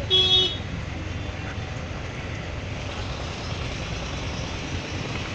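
A vehicle horn honks once, briefly, just after the start. It is one short flat note, over the steady low rumble of stalled road traffic.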